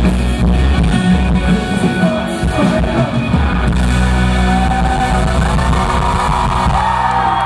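Live rock band playing loudly, with drums, electric guitar and bass. From about halfway through, voices calling out rise over the music.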